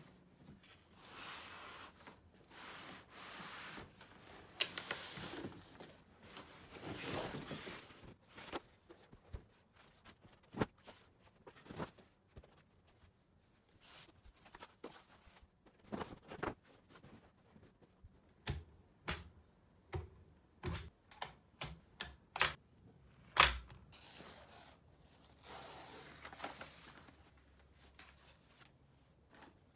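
Unboxing by hand: wrapping paper and packaging rustling and tearing, then a run of sharp clicks and knocks as items are handled and set down, with one louder knock near the end before more rustling.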